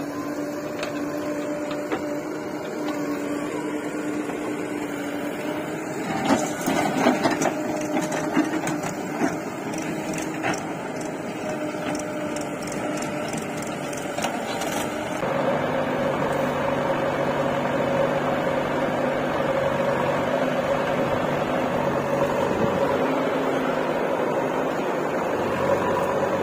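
Diesel engines of a backhoe loader and a tractor running steadily with a steady whine. Between about six and ten seconds in comes a run of knocks and clatter as clods of earth land in the steel tractor trolley. About fifteen seconds in the sound switches abruptly to another steady diesel engine running.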